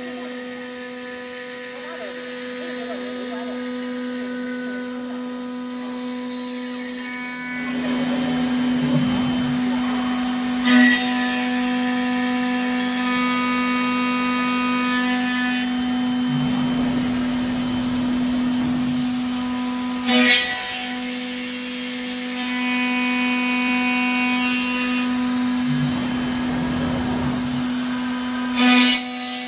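3-axis CNC machining centre for aluminium profiles running, with a steady electric hum. A high-pitched spindle whine cuts in and out several times: until about a quarter of the way in, twice in the middle, and again at the very end.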